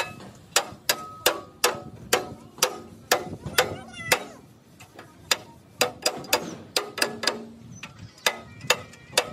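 Hammer blows on a steel UD truck chassis frame: sharp metal strikes about two to three a second, each ringing briefly, with short pauses about halfway through and again near the end.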